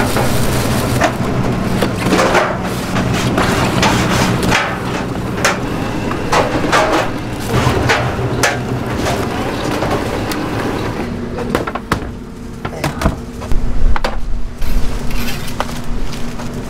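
Electric stainless steel vegetable shredder running with a steady hum while shredded cabbage and the plastic bag catching it crackle and rustle. About eleven seconds in this gives way to sharp knocks and clatter of metal baking trays, loudest a little before the end.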